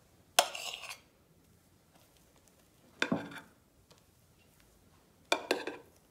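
Spoon scraping and clinking against ceramic dishes while scooping and spreading mascarpone cream, three short scrapes about two to three seconds apart.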